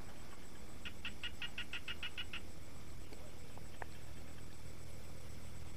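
A small animal calling: a rapid run of about ten short chirps, some six a second, starting about a second in and lasting about a second and a half, over a steady low hum.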